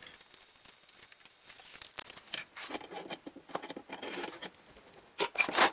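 Stock scissor jack being set under the car and cranked by its bent rod handle: scattered metallic scrapes and clicks, with a few louder rasps near the end.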